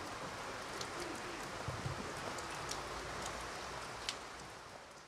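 Steady outdoor hiss with scattered faint ticks, fading out near the end.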